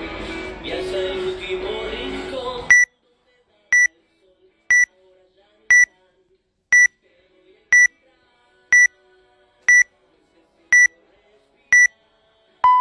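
Music cuts off about three seconds in. A workout timer then gives its countdown: ten short high beeps, one a second, and near the end a longer, lower beep that marks the start of the workout.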